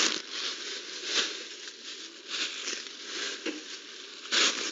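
Plastic bag crinkling and rustling as it is handled, in irregular bursts, loudest near the end.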